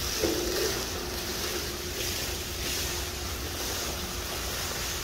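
Steady low rumble with wind-like noise on the microphone and a faint steady hum, with a brief louder sound just after the start.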